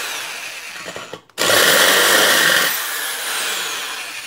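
Electric drill with a 6 mm bit boring into the screw head that fastens a pressure cooker's handle, drilling the head away to free the handle. It runs, stops briefly about a second in, then starts again loudly and gradually eases off toward the end.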